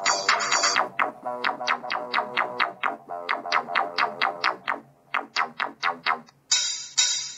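Electronic music with a run of quick plucked synth notes, played through an LG G4 smartphone's small loudspeaker, with almost no bass. After a short break about six seconds in, a fuller, denser section comes in.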